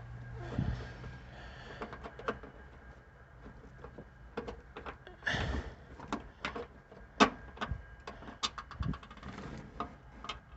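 Irregular clicks, taps and a few dull knocks with light rustling, from seat belt webbing and its hardware being worked and threaded by hand in an old pickup's cab.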